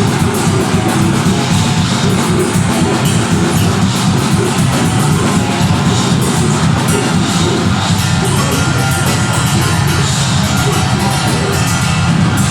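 Live deathgrind band playing at full volume: heavily distorted guitars and bass over fast, dense drumming, continuous and without a break.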